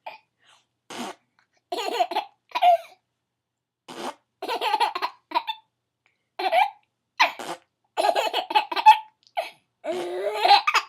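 A woman making spitting noises and a baby laughing in reply, in repeated short bursts.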